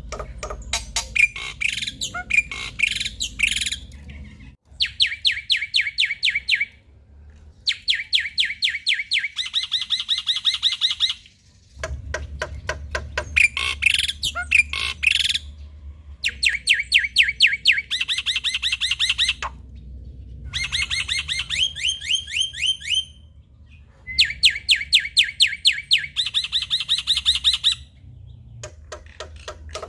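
Male black-winged starling (jalak putih) singing hard, in bouts of a few seconds of fast, harsh repeated notes with short pauses between.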